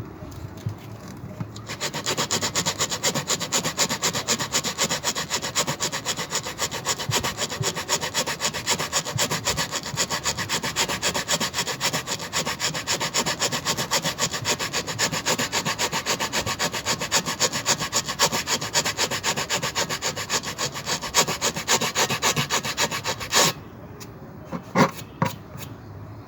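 Rapid, even back-and-forth rasping strokes of a hand rasp on tyre rubber, as when a puncture is roughened for a plug or patch. The rasping stops a few seconds before the end, followed by a few light knocks.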